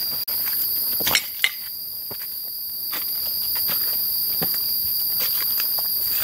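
Steady high-pitched insect drone in dry forest, with footsteps crunching through dry leaf litter and twigs and a couple of sharper snaps or knocks about a second in.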